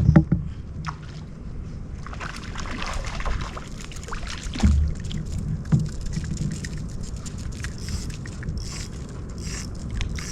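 Kayak on the water: knocks against the hull, at the start and again about four and a half seconds in, over splashing and sloshing water, with a steady low rumble underneath.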